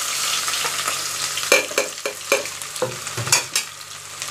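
Chopped onions sizzling in hot ghee in an aluminium pot. From about a second and a half in, a run of sharp knocks as they are stirred against the pot, and the sizzle eases a little toward the end.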